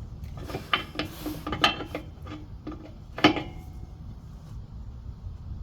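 Metal clinks and taps of a wrench tightening an air-line fitting on a truck's air tank, with one sharp clank about three seconds in.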